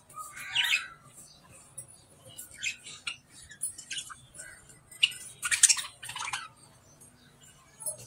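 A flock of caged budgerigars chattering and squawking in short, scattered high calls, the loudest about half a second in and a cluster around five and a half to six and a half seconds in.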